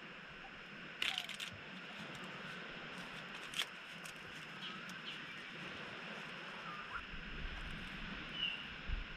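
A kangaroo feeds on leafy shrubs: leaves crackle briefly about a second in and click once a few seconds later as it pulls and chews at them. Underneath is steady bush ambience with a few short bird chirps.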